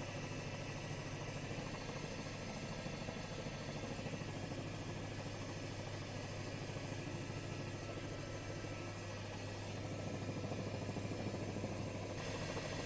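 Steady drone of a helicopter's engine and rotors as heard inside the cabin, an even low hum with a noise haze over it that does not change in pitch.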